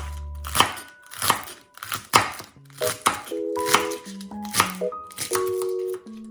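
Light background music with held, mallet-like notes, over sharp crisp strokes that come about every three-quarters of a second.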